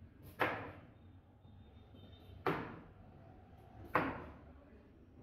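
Kitchen knife chopping down through a carrot onto a cutting board: three sharp chops, about one every one and a half to two seconds, as the carrot is cut into triangle pieces.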